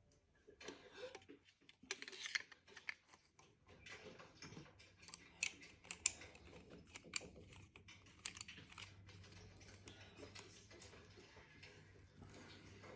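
Handling noise during an unboxing: a run of light, uneven clicks and rustles from packaging and plastic or metal parts being handled, with a faint low steady hum coming in about two-thirds of the way through.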